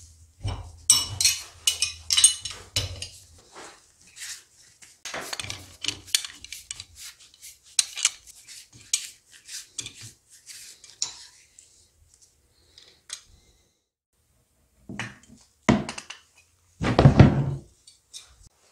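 Steel spanners clinking and clattering against each other and on the metal fittings of a motorcycle rear shock's reservoir hose as the hose is undone and handled: many quick sharp clinks, then a lull and a few heavier knocks near the end.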